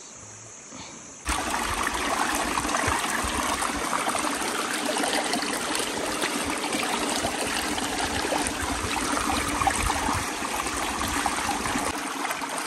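Shallow rocky stream running and trickling over stones, a steady rush of water that comes in suddenly about a second in.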